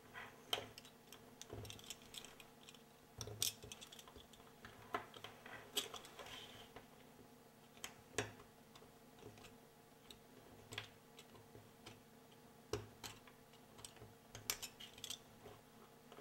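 Small metal blade tool clicking and ticking against a plastic wiring-harness connector while releasing a pin terminal to pull out a wire: a dozen or so faint, irregular clicks.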